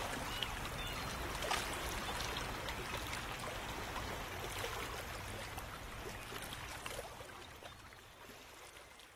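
A steady rushing, trickling noise like running water, with small crackles through it, fading out slowly.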